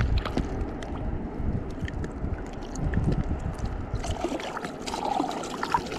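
Wind rumbling on the microphone, with scattered light clicks and small splashes; the rumble drops away about four seconds in.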